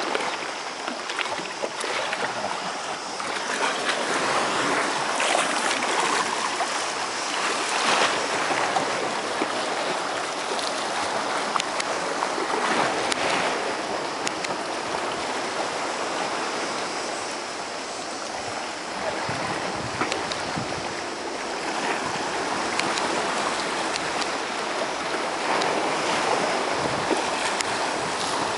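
Small sea waves washing against a rocky shore, a steady rushing splash that swells and eases gently.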